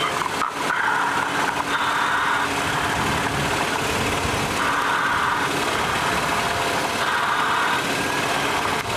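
Machinery running steadily, with a louder hiss coming and going every two to three seconds.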